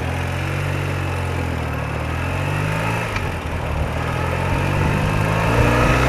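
BMW R80RT's air-cooled flat-twin engine running, its note and loudness rising gradually through the second half.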